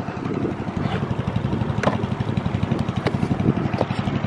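Boat engine running steadily at speed with a fast, even pulse, and a few sharp knocks about a second apart.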